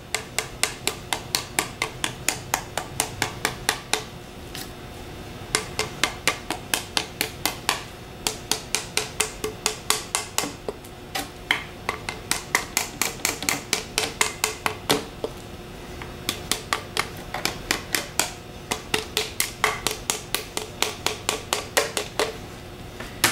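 Ball-peen hammer tapping lightly around the copper windings of a GM CS144 alternator stator, knocking swollen or out-of-place windings back so they won't rub the rotor. The taps come in quick runs of about three or four a second, with short pauses between runs.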